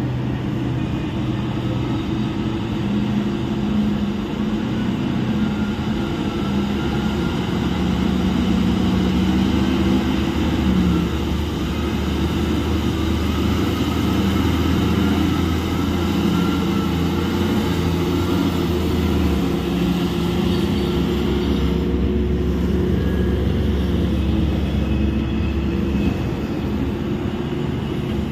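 Large mining haul truck's diesel engine running under load, a steady heavy engine note that shifts slightly in pitch now and then.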